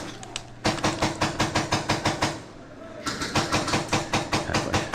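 Airsoft guns firing on full auto in two long rapid bursts, about eight shots a second. The first burst starts just under a second in and stops about two seconds in, and the second starts about three seconds in.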